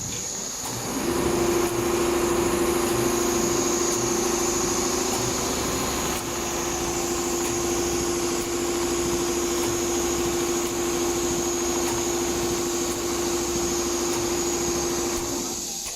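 Multihead industrial leather sewing machine running at speed, with a steady motor whine over fast stitching. It starts about a second in and stops near the end.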